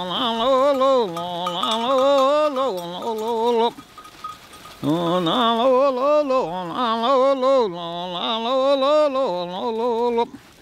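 A man's voice joiking, the Sami chant style, in long wavering held notes with no accompaniment. There are two phrases, with a short pause about four seconds in, and it stops shortly before the end.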